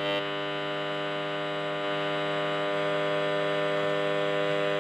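Steady electronic buzz with many even overtones: a cordless phone base station's radio signal made audible through a spectrum analyser's loudspeaker. The base transmits at full power even when no call is in progress.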